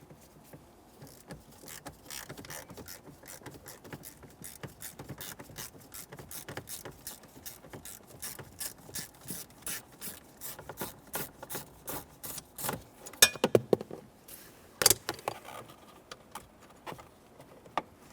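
Hand tool ratcheting in steady clicks, about four a second, as a 6mm Allen-head steering-column mounting bolt is backed out. A few louder knocks of metal follow about two-thirds of the way through.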